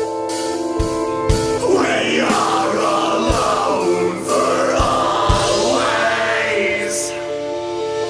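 Heavy, metal-leaning band recording: held guitar or synth chords with a few scattered kick-drum hits. A wordless vocal line comes in about two seconds in and fades out about six seconds in.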